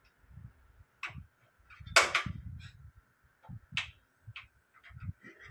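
Gas grill's push-button igniter clicking sharply a few times at irregular intervals, the loudest about two seconds in, as the grill is being lit, with low handling knocks on the grill in between.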